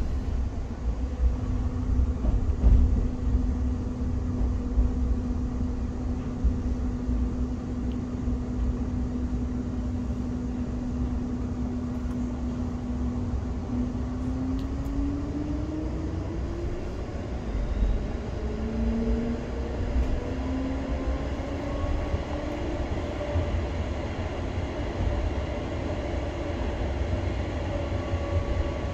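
Tram cabin interior while running: a steady low rumble of wheels on rail, with an electric traction-motor whine that holds one pitch, then rises about halfway through as the tram speeds up.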